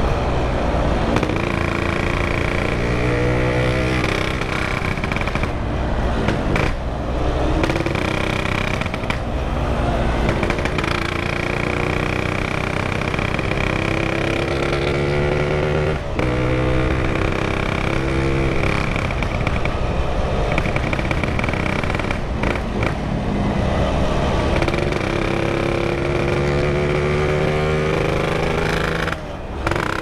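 Yamaha RX-King's two-stroke single-cylinder engine revving up and shifting through the gears several times over, with a rush of wind underneath.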